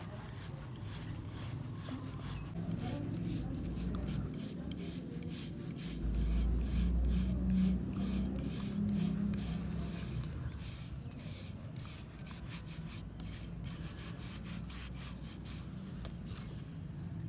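Rapid back-and-forth hand strokes of an abrasive scraping over the steel of a rusty kitchen knife blade, about three or four strokes a second. A low rumble swells underneath for a few seconds around the middle.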